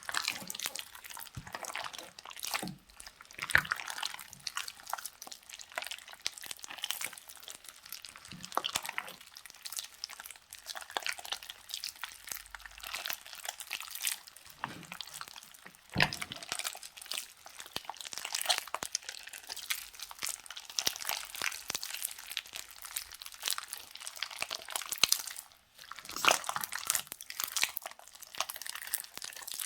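Slime being squished and worked by hand, giving a dense run of small sticky crackles and pops, with a louder pop about halfway through.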